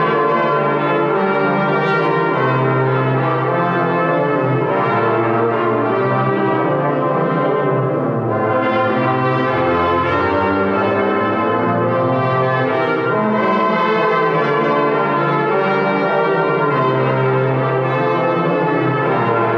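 Church brass choir of rotary-valve trumpets, trombone and tuba playing a sustained chord-based piece, with the tuba's low notes underneath.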